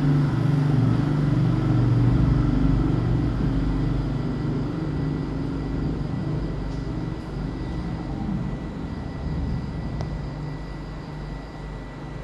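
A low, steady mechanical rumble, like an engine, slowly fading over the stretch, with a faint steady high whine beneath it.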